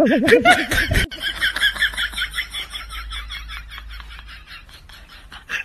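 Comedy sound effects: a loud wobbling tone for about the first second, then a fast run of short high-pitched pulses that fades away toward the end.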